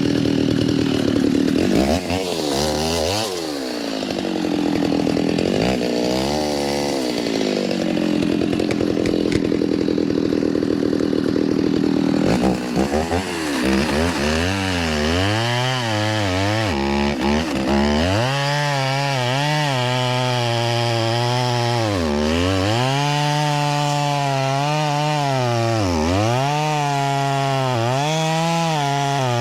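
Stihl MS 390 two-stroke chainsaw running at full throttle while cutting through a red oak log. Its engine pitch dips again and again as the chain bites under load, most clearly in the second half.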